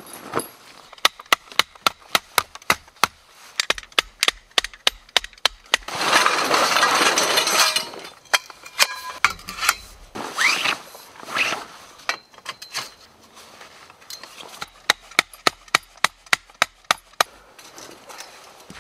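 Canvas tent being pitched: quick runs of sharp knocks and clicks from metal tent poles and gear, with a spell of canvas rustling about six seconds in.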